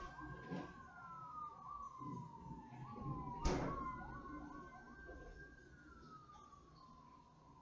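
Emergency vehicle sirens: one slowly rising and falling, another making quick repeated rising chirps over it. A single sharp bang comes about three and a half seconds in, and the sirens fade toward the end.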